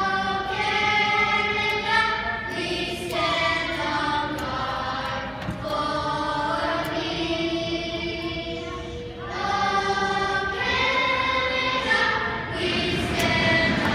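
Children's choir singing together, in phrases of long held notes with short breaks between them.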